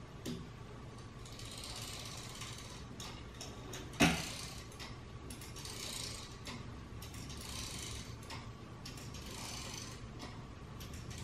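Gear mechanism of a 3D-printed kinetic wall sculpture running as its arm wheels turn: soft mechanical whirring that swells and fades every couple of seconds, with scattered small clicks. One sharp, loud click comes about four seconds in.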